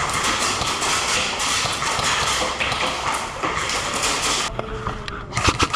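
A rapid, irregular run of taps and clatter from close-quarters airsoft play. A cluster of sharper, louder clicks comes near the end.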